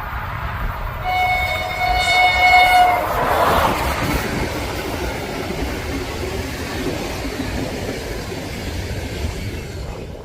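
Train horn sounding one steady note for about two seconds. The train then runs past with a steady rush and a low rumble of wheels on the rails.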